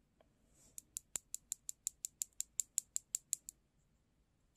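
Light, even clicking taps, about six a second, of an old makeup brush being tapped to sprinkle fine glitter onto a nail. The tapping starts about a second in and stops about a second before the end.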